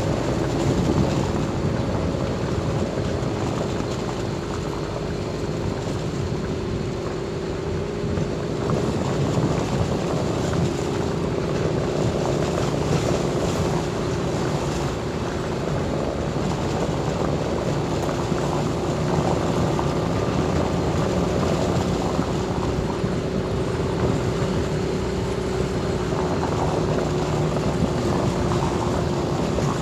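Car driving along a concrete road, heard from inside the cabin: a steady engine drone with tyre and road noise.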